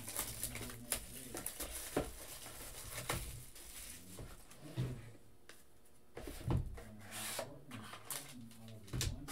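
Shrink-wrapped cardboard trading card box being unwrapped and opened: plastic wrap rustling and tearing, then cardboard sliding, with scattered small clicks and taps and a quieter pause midway.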